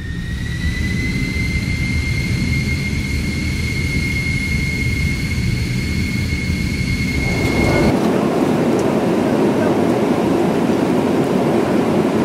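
Jet airliner's engines heard inside the cabin: a steady rush with a high whine that rises slightly and then holds. About eight seconds in, the whine stops and the rush turns brighter.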